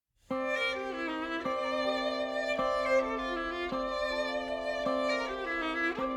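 Instrumental introduction of a folk-flavoured musical theatre song: a violin melody over a steady held low note, with an accent about once a second.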